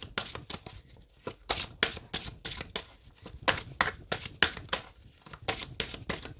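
A deck of oracle cards shuffled by hand, the cards flicking and slapping against each other in quick, irregular strokes, several a second.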